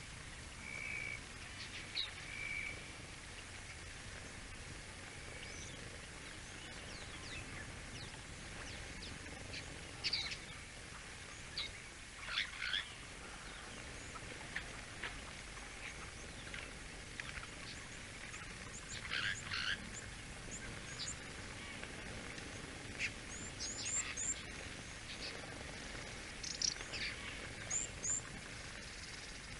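Wild birds chirping: scattered groups of short, high chirps, more frequent in the second half, over a steady background hiss.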